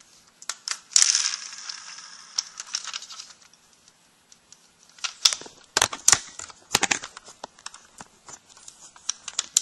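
Hard plastic toy figures being handled, with a crinkling rustle about a second in, then a run of sharp clicks and knocks of plastic parts and pieces being set down.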